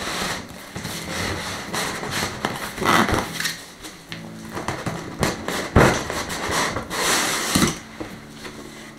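A cardboard box being opened by hand: rustling and scraping of the cardboard flaps, with a few sharp knocks and a louder scrape about three seconds in and again near the end.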